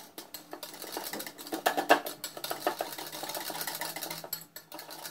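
Wire whisk beating a thick cream mixture in a ceramic bowl by hand: fast, even clicking and tapping of the wires against the bowl that stops a little past four seconds in.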